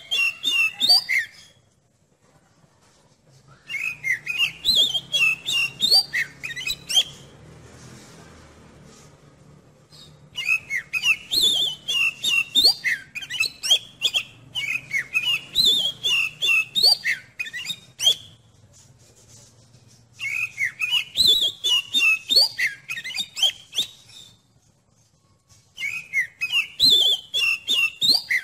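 Oriental magpie-robin (kacer) singing in repeated bursts of a few seconds each, with short pauses between them. Each burst is a fast run of sharp clicking, chattering notes mixed with clear whistles that slide up and down.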